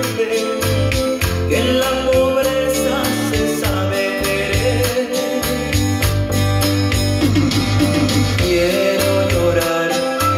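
Music with singing over a steady beat and a moving bass line.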